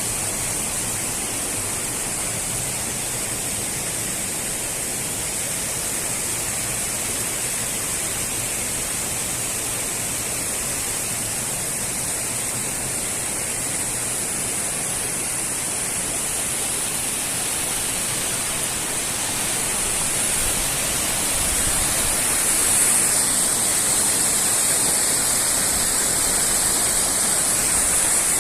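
Waterfall: the steady rush of falling water, growing a little louder about twenty seconds in.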